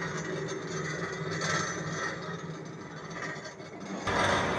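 A belt-driven screw oil press idling, running empty with no seed in it, with a steady mechanical hum and whir from its gearbox and drive. It grows louder near the end.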